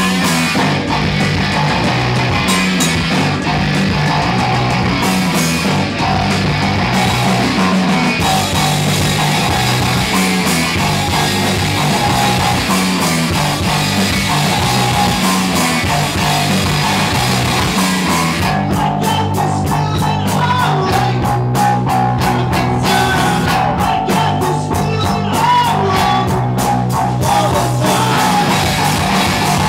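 Live rock band playing loud, guitar to the fore over a moving bass line; in the last third the playing turns choppy and stop-start.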